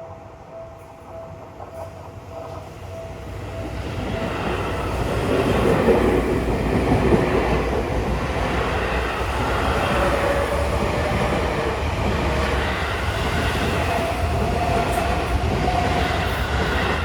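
A Seibu Ikebukuro Line electric commuter train passing a level crossing. It grows louder over the first five seconds or so and stays loud until just before the end. The crossing's warning bell pulses steadily at the start and is drowned out once the train arrives.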